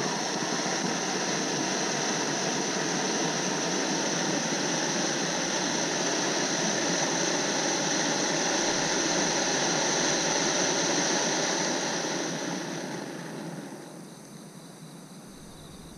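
Ground fountain firework spraying sparks with a steady, loud hiss that dies away between about twelve and fourteen seconds in as it burns out.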